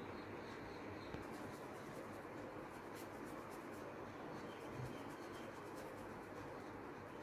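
Paintbrush scratching over a canvas sheet in short strokes as acrylic paint is laid on. A quick run of strokes, about five a second, comes about a second in and lasts a couple of seconds, with fainter strokes after it, over a low steady hiss.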